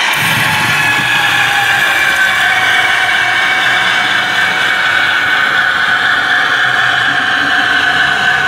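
Piko H0 'Ludmilla' model diesel locomotive running along the track with its coaches: a steady whine with a rumble under it.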